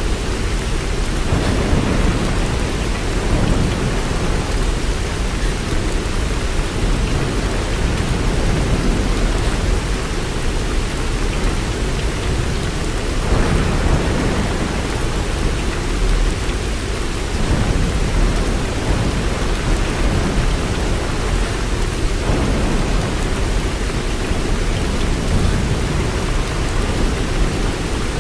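Steady heavy rain, an even hiss with a strong low rumble underneath that swells a little now and then.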